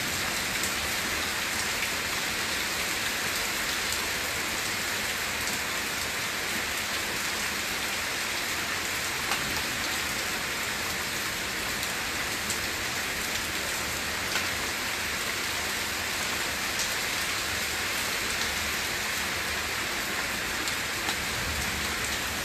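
Heavy rain falling steadily on puddled ground and banana leaves, a constant even hiss with a few sharper drop ticks now and then.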